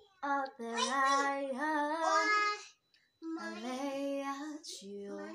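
A woman singing unaccompanied: two phrases of held, wavering notes with a short break about halfway through.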